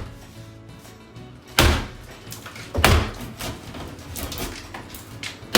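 Heavy blows struck against a wall being demolished: two sharp impacts about a second apart, a third near the end. Faint music runs underneath.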